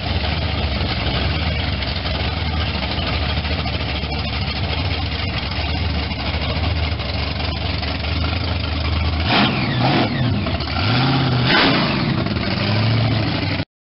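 Supercharged engine of a 1967 Pontiac Firebird convertible running steadily at low speed, then revved twice in the last few seconds, each rev rising and falling in pitch.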